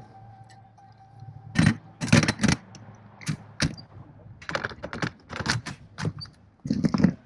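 Metal parts of an M240 machine gun clicking and clacking as they are handled and fitted by hand: a string of irregular sharp clicks, several close together in places.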